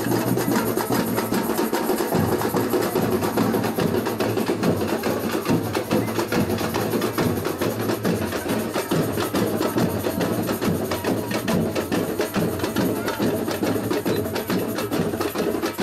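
Samba batucada percussion ensemble playing a fast, dense rhythm of many drums, with deep bass drums underneath.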